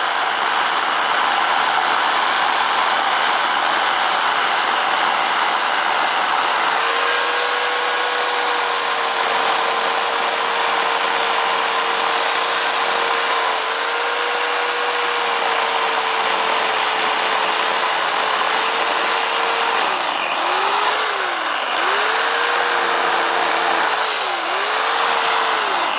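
Harbor Freight Portland electric chainsaw running at full speed as it cuts through a pecan limb, a steady motor whine. Near the end the whine dips in pitch and recovers three times.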